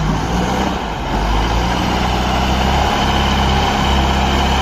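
Heavy truck engine idling with a steady low rumble.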